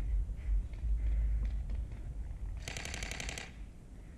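A short burst of rapid full-auto airsoft gunfire, under a second long, a little past the middle, over a low rumble of wind on the microphone.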